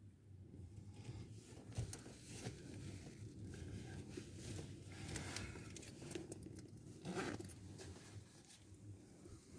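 Faint rustling and handling noise inside a car, with louder crinkly bursts about two, five and seven seconds in, over a low steady rumble.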